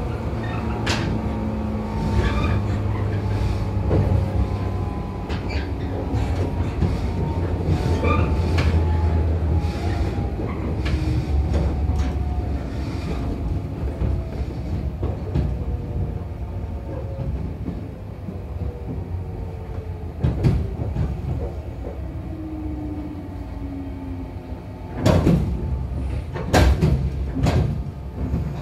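Running sound inside a JR 415 series motor car (MoHa 415): the traction motor and gear whine falls steadily in pitch as the train slows, over the rumble of wheels and track. From a few seconds before the end comes a run of sharp knocks and clatter as it rolls in slowly.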